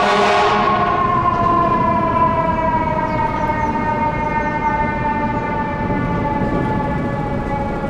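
Siren of a 2015 KME Severe Service fire engine sounding while it responds, its pitch falling slowly and steadily throughout. A hiss fades out in the first moment.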